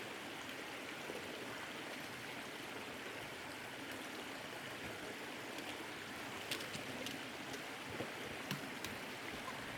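Mountain stream running steadily, with a few small sharp ticks in the second half.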